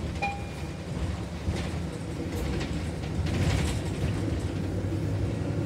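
City transit bus interior while driving: a steady engine and road rumble with rattling from the body and fittings, loudest between about 1.5 and 4 seconds in. A short electronic beep a quarter of a second in is the stop-request chime.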